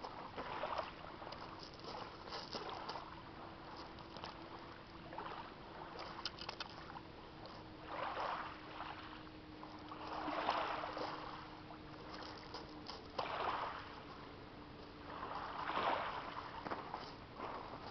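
Small waves washing onto a pebble shore, swelling every two to three seconds.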